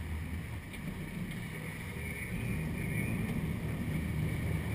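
Sportfishing boat's engines running with a steady low rumble under wind and water noise, growing a little louder toward the end.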